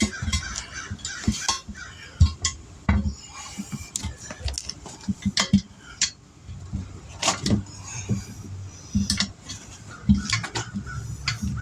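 Metal tools and parts clinking and clattering as they are handled: an irregular run of sharp clinks and knocks.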